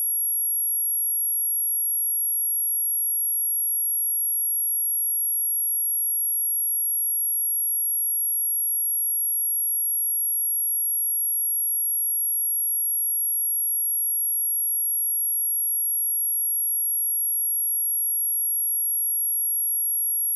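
A pure 11277 Hz sine-wave test tone, one very high steady pitch held without change.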